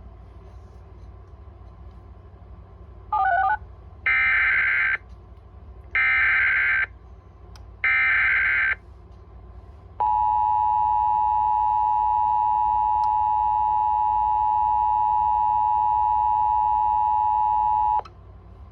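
Emergency Alert System alert tones: three short bursts of buzzy SAME header data about two seconds apart, then the steady two-note EAS attention signal held for about eight seconds, marking the start of a fire warning broadcast. A low hum runs underneath.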